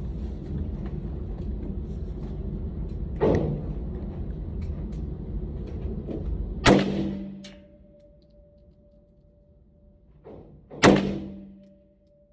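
CZ Scorpion Evo being fired in slow single shots, three sharp gunshots a few seconds apart, the second and third the loudest.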